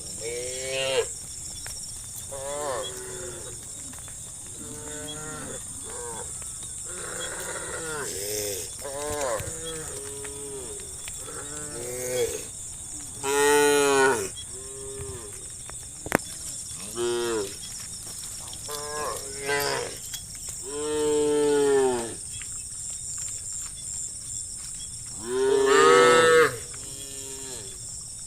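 A herd of cattle mooing, one call after another with some overlapping, each call rising and then falling in pitch; the loudest calls come about halfway through and near the end, over a steady high hiss.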